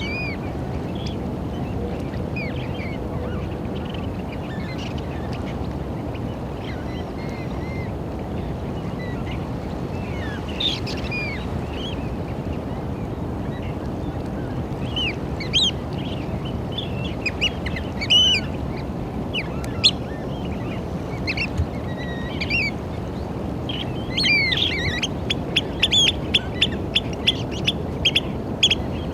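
Eurasian oystercatchers calling: short, sharp piping calls, scattered at first, then a fast run of repeated calls about two or three a second in the last few seconds, over a steady low rushing background noise.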